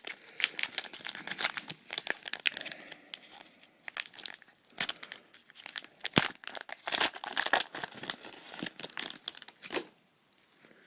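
Wrapper of a 2007 Topps baseball card rack pack being torn open and crinkled, in dense irregular crackles and sharp snaps that stop near the end.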